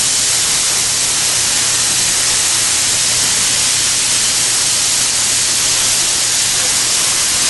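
Steady, loud hiss of a welding arc running continuously, with a faint low hum underneath.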